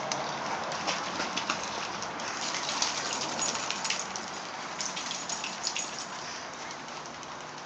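Water splashing and spattering, a steady rain-like hiss with many sharp drips throughout, easing slightly near the end.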